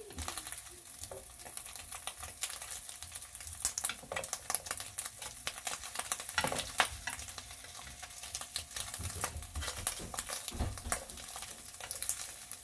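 Ham slices and bread frying in oil in a nonstick pan: a steady crackling sizzle with scattered sharp pops.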